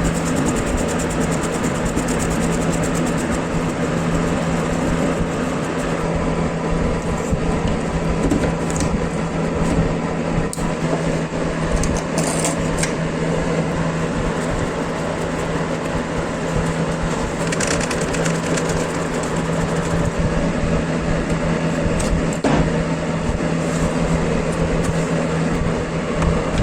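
An electric power tool running steadily with a constant hum and a rough, noisy edge, with a few short sharp clicks along the way.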